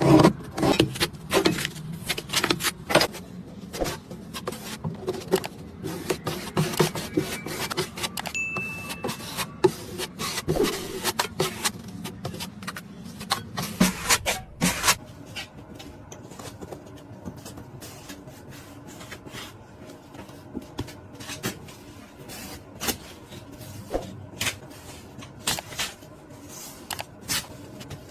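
Drywall taping knife scraping and spreading joint compound on a wall in repeated irregular strokes, with sharp clicks and taps of the blade.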